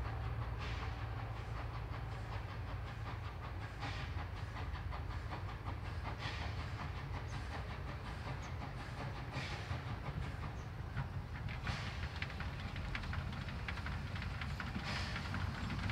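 Steam train approaching from a distance: a steady low rumble from the locomotive and carriages, dense fine ticking, and hissy puffs of steam every two to three seconds, growing slightly louder near the end.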